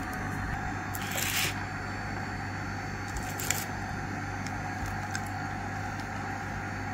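A slice of sourdough bread handled on baking paper: a short scraping rustle about a second in and a faint click a little later, over a steady low background hum.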